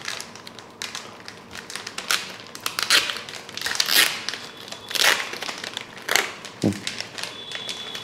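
Red foil pouches of Jolo chips being crinkled and torn open by hand, several at once, making a run of irregular sharp crackles.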